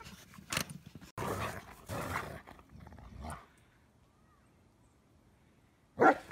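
Dog sounds during rough play in snow: a few seconds of noisy dog vocalizing, a quiet lull, then a short, loud dog sound near the end.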